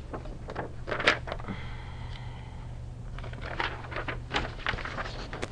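Scattered light clicks and taps, several of them in a cluster near the end, over a steady low electrical hum.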